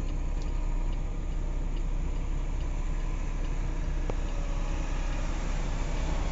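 Diesel engine of a Peterbilt 579 semi truck running steadily near idle, heard from inside the cab as the truck creeps along at walking pace.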